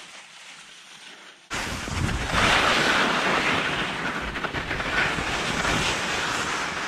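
Wind rushing over the microphone of a body-worn camera during a ski descent, with skis hissing over soft snow; the noise jumps suddenly louder about a second and a half in and stays loud.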